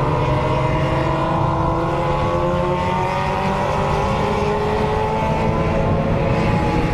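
Several sport motorcycles with straight-piped 4-into-1 exhausts running together, a loud blend of engine notes that drift slowly up and down in pitch.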